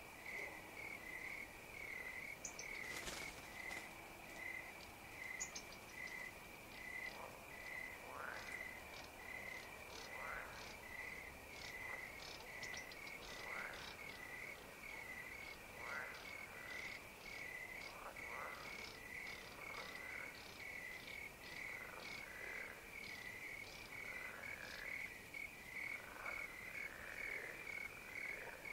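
Pond chorus of crickets and frogs. Crickets chirp steadily in an even, rapid pulse, while frogs give short calls that fall in pitch every couple of seconds, with scattered faint high ticks.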